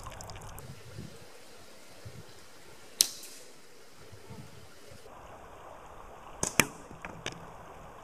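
Slingshot shooting at apples: a single sharp crack about three seconds in, then two close sharp cracks about six and a half seconds in and a lighter click just after, as the shots are fired and the ammo strikes the apple and boulder. A steady creek rush runs underneath.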